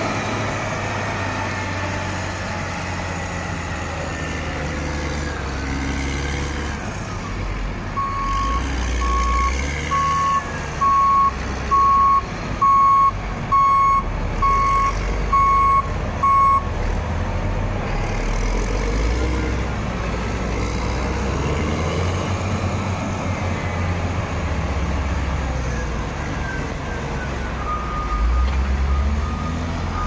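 Heavy diesel snow-clearing machines, among them a Caterpillar motor grader, running steadily with a deep engine rumble. A backup alarm beeps about ten times, a little more than once a second, from about a quarter of the way in. Another beeper starts up faintly near the end.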